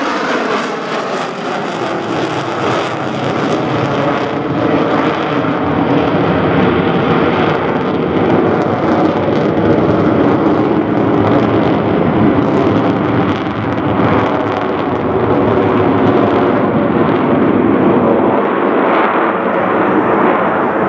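Jet noise from four Boeing F/A-18 Hornets flying in diamond formation, a loud, steady roar that swells a little a few seconds in.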